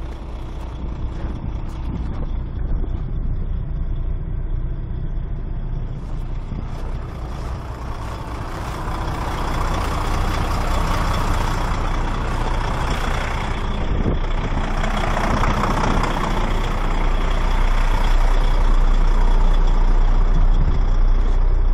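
Tractor unit's diesel engine idling steadily, a low hum that grows louder toward the end. A broad rushing hiss rises over it in the middle and fades again.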